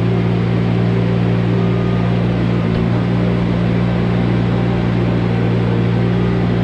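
ASV RT-25 compact track loader's engine running steadily while the loader works a bucket of dirt, a loud even drone with a strong low hum.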